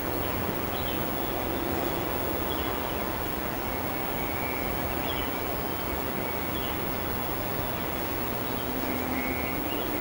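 Steady outdoor background rumble, like distant traffic or wind, with faint brief bird chirps every second or two.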